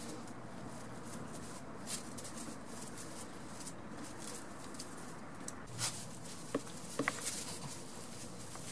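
Goat kids' small hooves stepping and rustling in straw bedding, with a few short sharp taps, most of them between about six and seven seconds in, over a steady faint background hiss.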